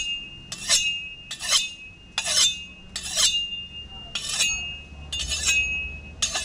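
Large knife chopping into the husk and shell of a coconut: about eight sharp strikes, a little faster than one a second, each followed by a short metallic ring.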